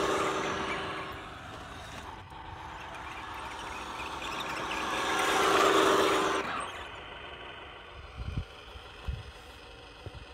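Radio-controlled Mini Cooper model car driving past on asphalt: its electric motor whines and its tyres hiss, swelling as it comes by, fading, then swelling again about five to six seconds in. The sound cuts off suddenly after that, leaving a quieter steady hum with a few short low thumps.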